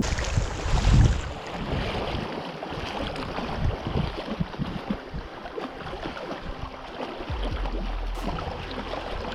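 Wind noise on the microphone: a steady rushing hiss, with a low rumble joining about seven seconds in.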